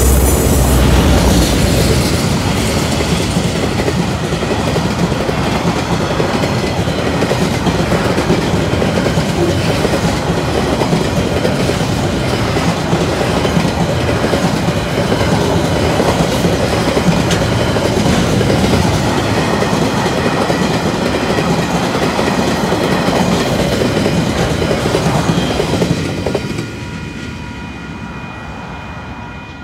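KiwiRail freight train passing close. A deep locomotive rumble in the first second or two gives way to the steady clickety-clack of container and tank wagons rolling by, with a faint high ringing from the wheels on the rails. The noise drops sharply a few seconds before the end as the train draws away.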